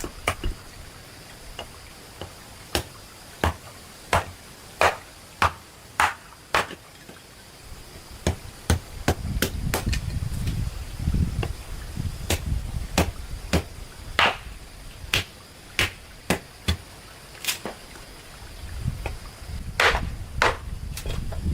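A hand tool striking repeatedly in sharp, separate blows, about one to two a second at an uneven pace. A low rumble rises under the strikes in the middle and again near the end.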